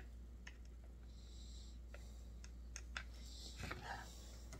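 Light scattered clicks and taps from a plastic-bodied chainsaw being handled and turned over on a workbench, with a brief scraping rustle near the end. A steady low hum runs underneath.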